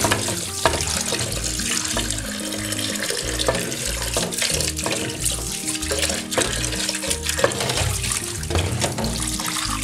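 Tap water running and splashing into a clay bowl in a steel sink while skinned sole fish are rinsed by hand, with occasional sharp knocks and splashes. Background music plays underneath.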